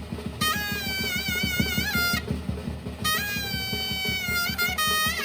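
Surnay, the Uzbek double-reed shawm, playing held, ornamented melody notes in two phrases, with a drum beating a quick, steady rhythm beneath.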